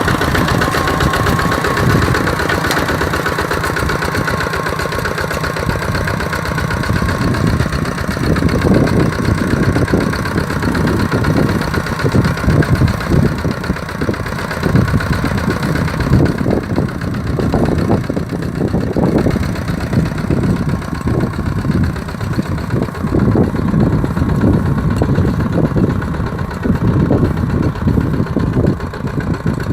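Kubota RT-120 tractor's single-cylinder diesel engine running steadily while ploughing a rice field, its low beat becoming uneven about eight seconds in.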